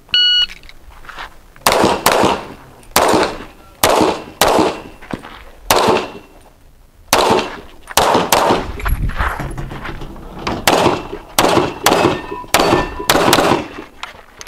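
Shot timer start beep, then a string of handgun shots in an IPSC stage run, many fired in quick pairs with short pauses between.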